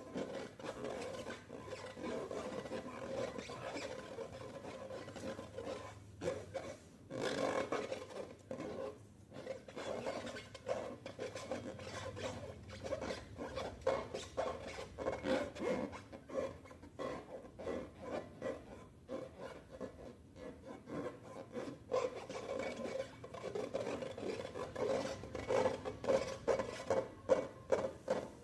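Slime being stirred and kneaded: a continuous wet rubbing and crackling, turning into a run of regular squelches, about three a second, near the end.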